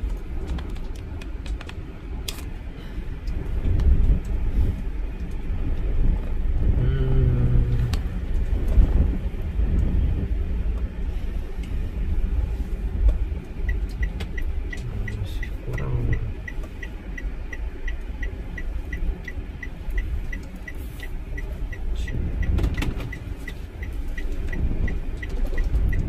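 Car driving slowly along a narrow lane: steady low engine and road rumble that swells now and then, with a light regular ticking about two to three times a second from about halfway through.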